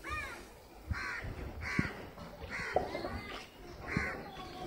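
Crow cawing repeatedly, a harsh call about once a second, with a few short dull knocks underneath.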